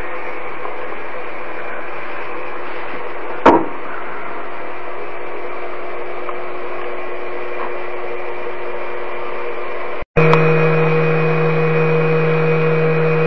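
Homemade plywood-framed CNC router running while a small carbide end mill mills aluminium: a steady spindle whine over a motor hum. One sharp click comes about three and a half seconds in. The sound cuts out for a moment about ten seconds in and comes back steady with a lower hum added.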